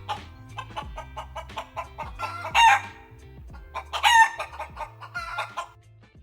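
Chicken calls, two loud ones about two and a half and four seconds in, over background music with plucked notes.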